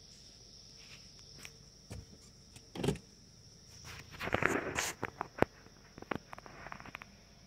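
Night insects, crickets or katydids, trilling steadily at a high pitch, heard from inside a car. Over them come a thump about three seconds in, then rustling and a series of sharp clicks and knocks as things are moved around inside the car.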